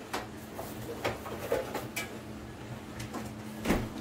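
Scattered light clicks and knocks of items being handled in a kitchen, about five in all, the loudest near the end, over a faint steady low hum.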